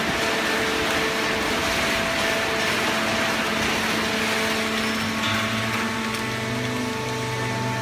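Fully automatic horizontal hydraulic baling press and its feed conveyor running: a steady mechanical noise with steady humming tones. A lower hum joins about five seconds in.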